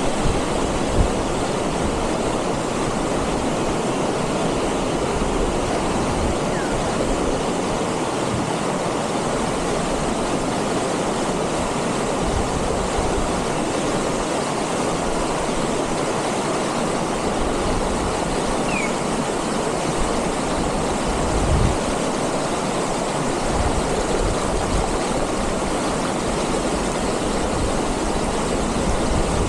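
Rocky mountain stream rushing over boulders in white-water rapids, a steady, unbroken rush of water.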